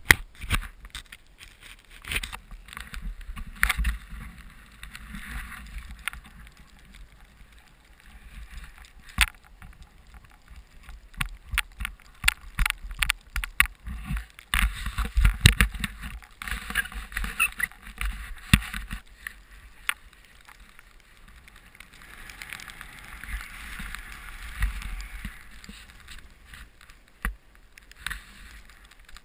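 Snowboard riding through deep powder, heard from a body- or helmet-mounted action camera: a rushing hiss of snow and air that swells and fades, with many sharp knocks and bumps on the camera.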